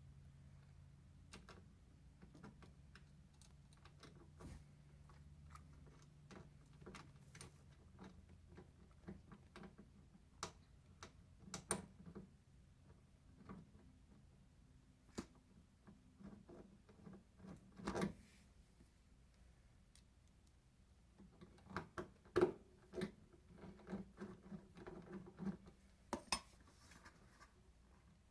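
Faint, irregular small clicks and metallic taps of screws and a screwdriver being handled while a refrigerator water inlet valve is fastened to the cabinet's thin sheet-metal back. The taps come thicker and louder in the last several seconds. A low steady hum fades out in the first few seconds.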